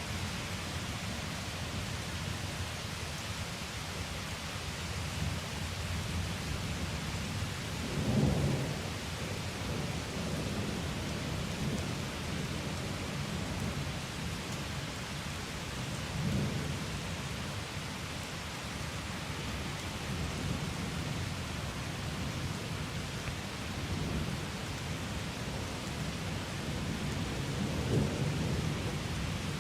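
Steady rain hissing through a thunderstorm, with low rolls of thunder. The thunder swells about 8 seconds in, which is the loudest, again around 16 seconds, and twice more towards the end.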